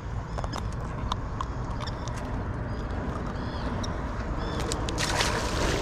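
Wind rumbling on the microphone over a fishing kayak on the water, with small clicks and knocks from the hull and gear and a few short high chirps. A louder rush of noise comes in near the end.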